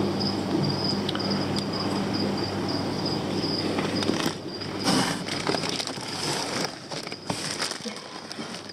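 Plastic fish bags crinkling and rustling as they are handled, in a run of irregular crackles from about four seconds in, over a steady high-pitched whine.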